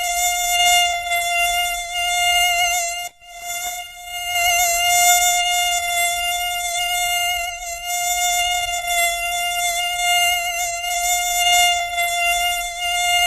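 Mosquito whine: a steady, high-pitched buzz from the beating wings that wavers slightly in pitch. It breaks off briefly about three seconds in.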